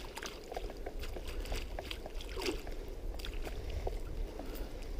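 Water splashing and trickling with scattered small splashes and knocks as a brown trout wriggles in a landing net in a stream, working the lure loose.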